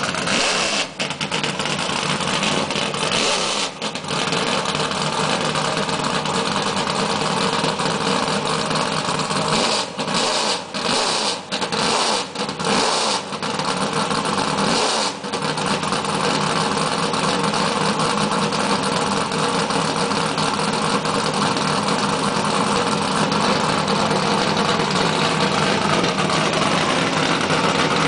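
Ford NASCAR stock car's race V8 running loud and rough. The throttle is blipped several times in the first half, with brief sharp dips between the revs, then the engine settles into a steady loud run.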